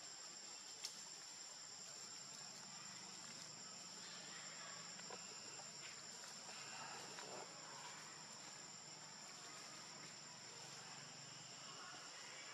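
Faint, steady high-pitched drone of insects, two even tones held throughout, with a single soft tick about a second in.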